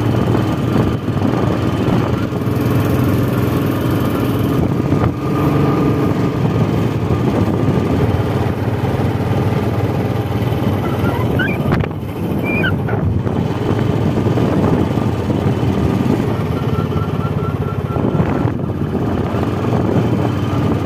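Royal Enfield Bullet's single-cylinder engine running at a steady cruise while riding, with road and wind noise.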